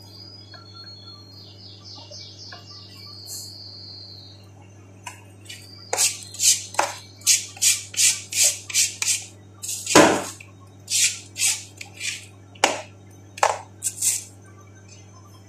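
Hand-held vegetable peeler scraping in quick strokes along a cucumber, about two strokes a second, starting about six seconds in, with one heavier stroke near the middle. A low steady hum runs underneath.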